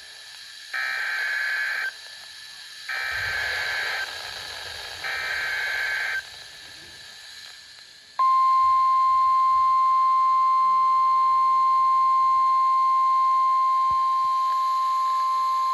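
Emergency Alert System activation for a severe thunderstorm warning: three one-second blasts of the SAME digital header, about a second apart. Then, about eight seconds in, the steady single-pitch 1050 Hz warning alert tone begins.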